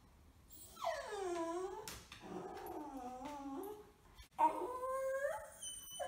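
Beagle puppy howling: three drawn-out howls, the first sliding down in pitch, the second wavering, the third rising and then falling.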